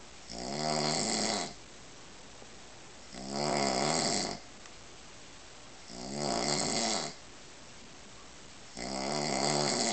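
A man snoring in his sleep: four snores about three seconds apart, each about a second long.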